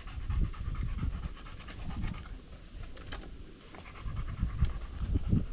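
A dog panting rapidly in the heat, with an uneven low rumble underneath.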